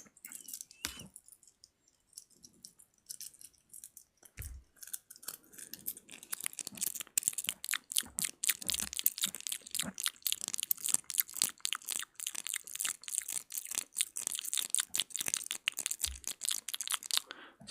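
ASMR mouth sounds close to the microphone: rapid wet clicks and smacks, sparse for the first few seconds, then dense and continuous.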